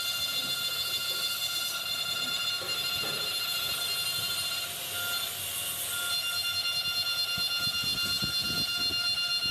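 CNC engraving machine's spindle cutting bronze: a steady high-pitched whine made of several held tones over a cutting hiss. It dips briefly about halfway through, then carries on a little louder with a fast, even pulse.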